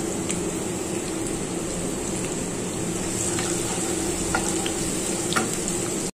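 Sliced onions sizzling and crackling in hot oil in a non-stick karahi, with a wooden spatula stirring and scraping them a few times in the second half.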